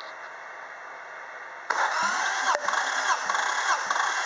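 Toyota 1MZ-FE 3.0-litre V6 turned over on its starter for a compression test. The cranking starts suddenly about a second and a half in, a steady whir with a regular beat a little under twice a second. The cylinder 1 gauge reads about 14 kg/cm², a normal compression reading.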